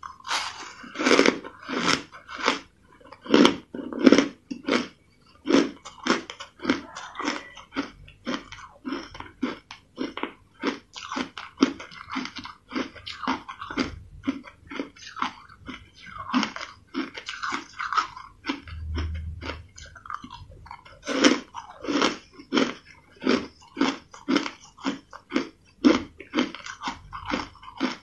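Crushed ice being bitten and chewed close to the mouth: a steady run of crisp crunches, about two a second.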